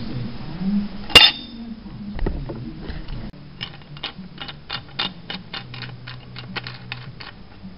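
A homemade lever clamp being levered under the edge of a drill press base: one sharp metallic clank with a brief ring about a second in, then a run of quick light clicks and knocks, about four a second, as the parts are worked into place.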